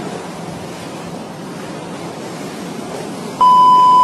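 Steady hiss of background noise, then near the end a loud electronic beep at one steady pitch that cuts off sharply.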